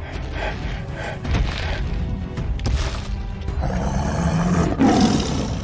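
Background music, with a roar-like sound effect swelling over it in the second half.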